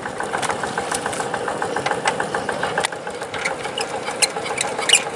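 Kubota RD85 single-cylinder diesel engine of a hand tractor idling with a steady, rapid knocking beat. Several sharp clicks come in over the last two seconds, the loudest near the end.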